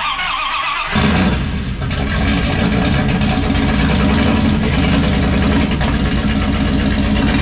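Dodge 5.9 Magnum V8 on Holley Terminator X fuel injection cranking on the starter for about a second, then firing and running loud through custom headers and exhaust. It catches quickly because the distributor has been set 180 degrees around to the right position.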